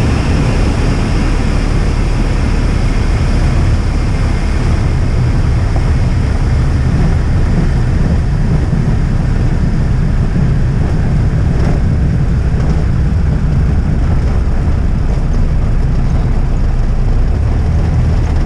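Jabiru 2200A four-cylinder air-cooled aircraft engine running steadily at low power while the Avid Flyer taxis after landing, heard from inside the cockpit as a constant deep drone under a rushing noise.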